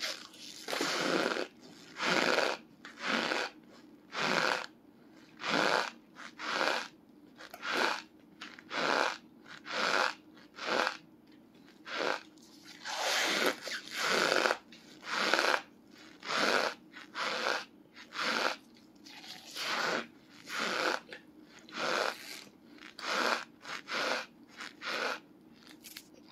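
Chunks of bulk cornstarch being chewed: crisp, squeaky crunches in a steady rhythm, about three every two seconds.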